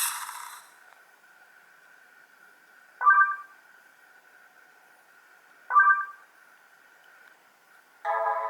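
ZTE Blade G Lux V830 smartphone speaker playing its stock tones one after another: four short electronic sounds, at the start, about three seconds in, about six seconds in, and a longer one of about a second near the end, over a faint steady high whine.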